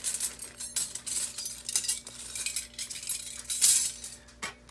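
Silverplated silverware clinking and jingling as a pile of it is spread out by hand among other metal pieces: a busy run of metal clinks, the loudest a little before the end.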